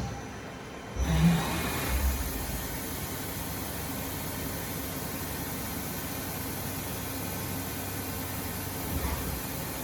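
Mori Seiki ZL-25 twin-turret CNC lathe machinery starting up about a second in, then running with a steady whir and hum.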